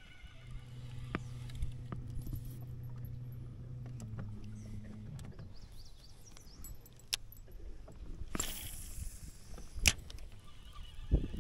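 A low, steady motor hum that shifts pitch about four seconds in and fades out after about five seconds, with scattered small clicks and a short hiss about eight and a half seconds in.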